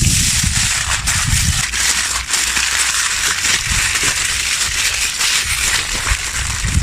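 Food frying in hot fat, a steady loud sizzle full of small crackles and pops.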